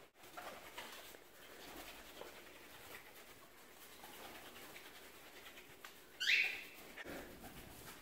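One short, shrill call from a frightened cockatiel about six seconds in, among faint scattered noises.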